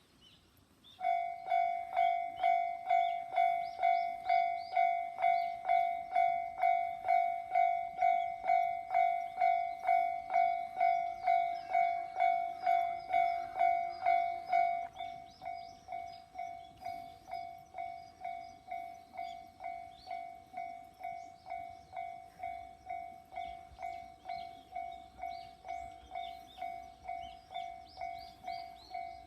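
Japanese level-crossing warning bell ringing, its electronic 'kan-kan' tone pulsing about twice a second to warn that a train is approaching. About 15 seconds in, the bell drops to a noticeably quieter level and keeps ringing.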